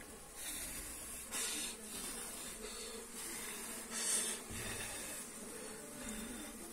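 A wild honey bee colony humming faintly, with three short hissing surges: the colony being disturbed.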